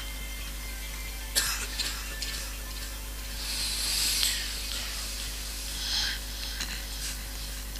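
Pause in a Quran recitation heard through a microphone and PA system: a steady electrical hum, a sharp click about a second and a half in, and a few soft breathy hisses, one near the middle and one about six seconds in.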